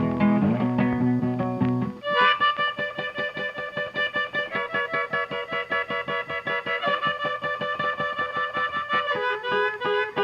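Instrumental background music with no speech. About two seconds in, the low bass part drops out and a fast, even pulse of repeated notes takes over under sustained higher tones.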